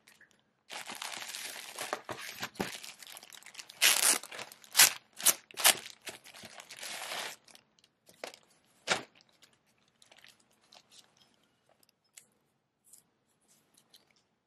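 Clear plastic polybag crinkling as it is torn open, with several sharp rips in the middle. After that come fainter rustles of fabric and a paper tag being handled.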